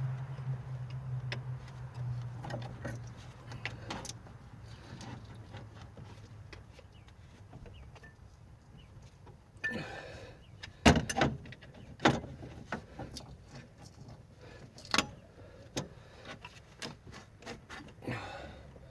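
Hand tools clinking and knocking against metal engine parts during repair work, scattered and irregular, with a few sharper knocks in the second half. A low hum fades out over the first few seconds.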